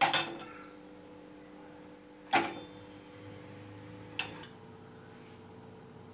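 Metal tongs and spatula clinking against a gas stove burner while a pulka is puffed over the flame: three sharp clinks, the first and loudest at the start, one about 2.4 seconds in and one about 4.2 seconds in. A steady low hum runs underneath.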